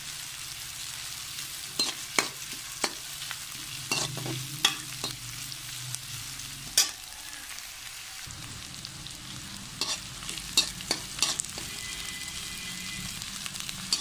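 Sliced onions, cumin and green chillies sizzling in hot mustard oil, sautéing until fragrant. A perforated steel spoon stirs them, with irregular clacks and scrapes against the metal pot.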